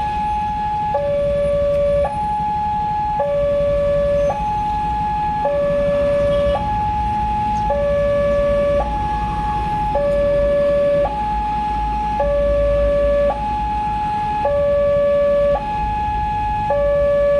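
Electronic warning alarm of a railway level crossing sounding with the barrier down, a steady two-tone high-low signal that switches pitch about once a second, the sign that a train is approaching.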